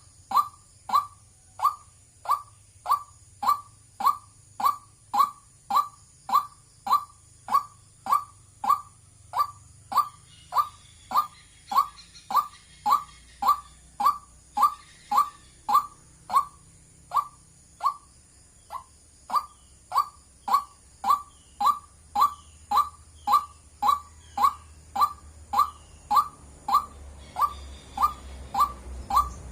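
White-breasted waterhen calling a monotonous, evenly repeated 'wak', about two notes a second, with a brief break about eighteen seconds in. Fainter, higher calls sound in the middle, and a low rumble builds near the end.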